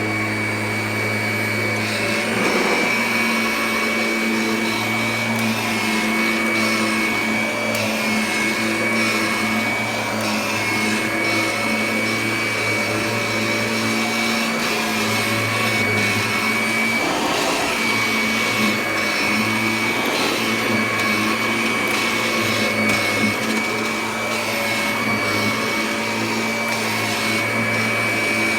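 Kirby Ultimate G upright vacuum cleaner running steadily while vacuuming: a constant high whine over a low motor hum that wavers at times.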